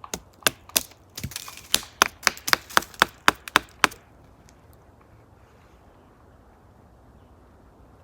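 A stick struck against wood in a quick series of about a dozen sharp, loud knocks, roughly three a second; they stop about four seconds in, leaving only faint outdoor background.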